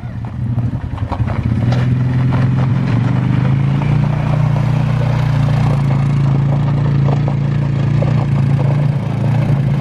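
Four-wheeler (ATV) engine running under throttle as it is driven in tight circles doing donuts, its note climbing over the first second or two and then holding steady, with scattered clicks from the tyres over the ground.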